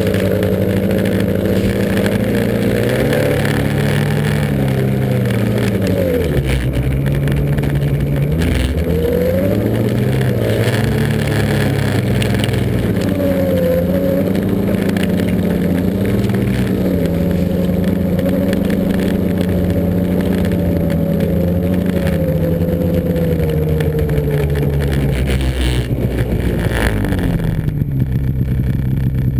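Snowmobile engine running under way, its pitch rising and falling as the throttle is worked. Near the end it drops to a lower, steadier note as it slows toward idle.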